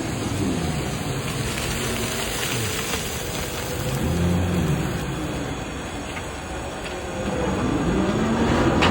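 Large electric excavator working, its drive motors whining in tones that rise and fall again and again as it hoists and swings, over a steady heavy rumble.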